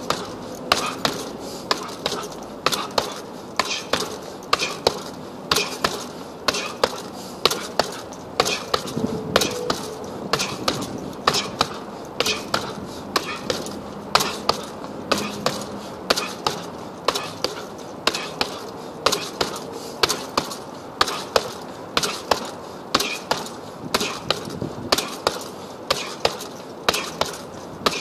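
Punches landing on a hanging heavy punching bag: sharp thuds thrown in quick combinations, roughly two a second.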